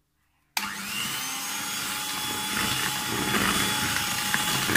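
Electric hand mixer running steadily with a faint whine, its twin beaters working icing sugar into butter for buttercream frosting. It cuts in abruptly about half a second in.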